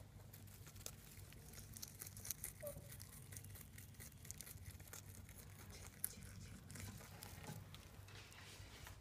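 Lop-eared rabbit chewing a leafy green on straw bedding: faint, irregular crunching clicks with light rustling of the straw.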